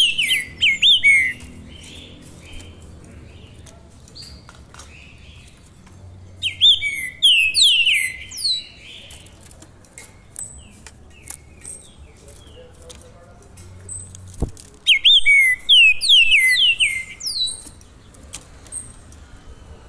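A caged black songbird singing three bouts of quick, slurred whistled notes, each about two seconds long and some seven seconds apart. Light clicks fall between the bouts, and a single knock comes just before the last one.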